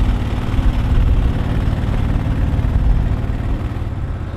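Motor of a 14-foot duck boat running steadily under way, a loud, even low drone.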